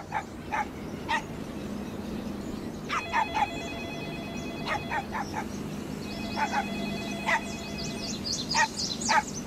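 Telephone ringing, two rings of about two seconds each starting about three and six seconds in, while birds chirp throughout.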